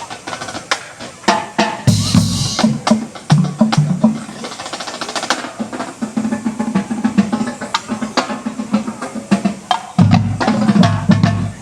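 Marching band drumline playing a cadence: fast snare drum strokes and rolls over pitched bass drums. A crash comes about two seconds in, and the bass drums come back in heavily near the end.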